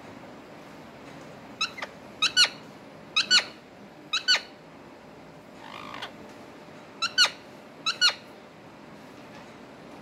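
Rose-ringed (green ringneck) parakeets giving short, high-pitched calls in quick pairs, six pairs in all, with a pause in the middle.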